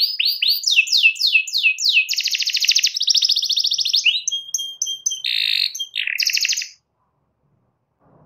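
Domestic canary singing. The song is a run of repeated down-slurred notes, about five a second, then a fast rolling trill, then varied chirps and a short buzzy phrase. It stops short about seven seconds in.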